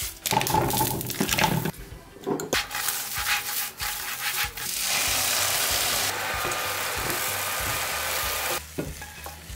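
Gnocchi frying in a nonstick pan: the pan is tossed and a wooden spatula scrapes and knocks against it. From about five seconds in there is a steady sizzle for a few seconds, which then stops.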